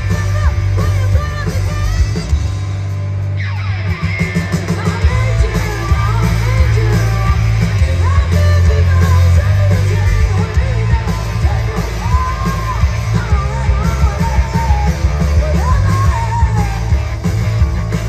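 Hard rock band playing live with electric guitars, bass and drums, a woman singing lead over them, heard loud and bass-heavy from the crowd.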